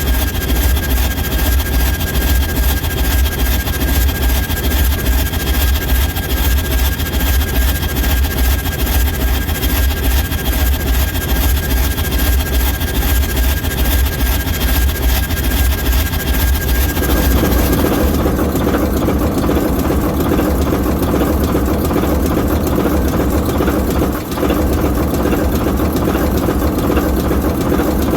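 ALCO S4 locomotive's 539T turbocharged inline-six diesel prime mover running, with a fast low pulsing beat and a thin high whistle over it. About two-thirds of the way through, the whistle stops and the sound turns to a heavier mid-range rumble.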